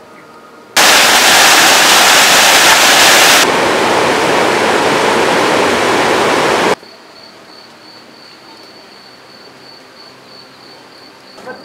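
A loud, even rushing noise, like fast water or wind on the microphone, that starts suddenly about a second in, turns a little duller about halfway through and cuts off abruptly; after it, a steady high insect trill.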